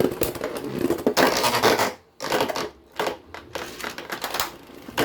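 Plastic Beyblade X parts being handled and swapped: irregular clicking, clattering and scraping in uneven bursts.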